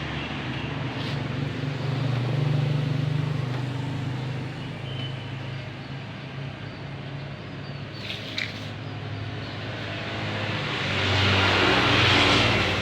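Motor vehicle engines running, the hum swelling and fading twice as vehicles pass, with a brief higher-pitched sound about eight seconds in.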